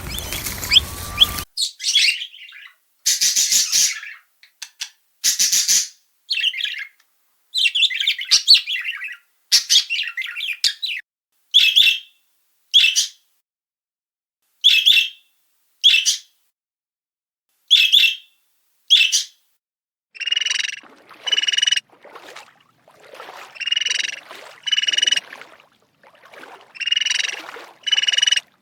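Birds squawking: short harsh calls in clipped segments separated by dead silence. In the second half the calls come in pairs about a second apart, repeating every few seconds.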